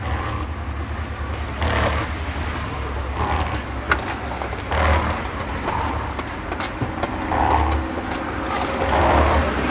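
Steady low rumble of road traffic beside the stall, swelling every second or two as vehicles go by, with a few light clicks and knocks over it.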